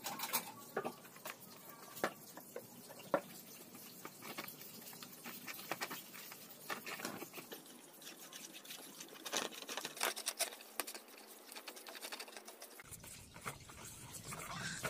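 A small brush scrubbing and dabbing around the inside of a plastic basin, spreading oil over the wall: an irregular patter of short scrapes and taps.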